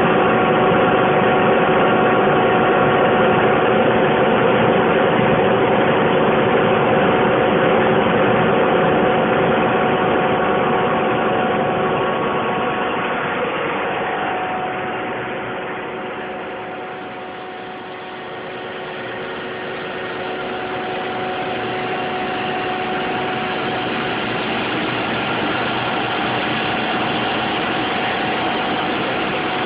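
Rotrex turbocompressor heat-pump plant running steadily, compressing steam: a loud, even machine noise with several steady whining tones. It grows quieter for a few seconds past the middle, then comes back up.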